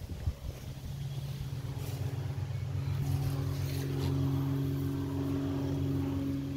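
An engine drones steadily, swelling over the first few seconds and then holding loud. A couple of sharp knocks come right at the start.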